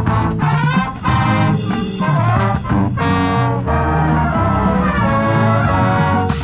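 Marching band brass section (trombones, trumpets, sousaphones) playing live in sustained chords, with two loud accented chords about one second and three seconds in.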